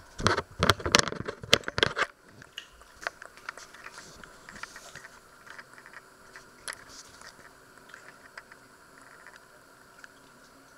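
Handling noise from the camera being picked up and moved: a quick run of knocks and rubbing for about two seconds, then only faint scattered clicks.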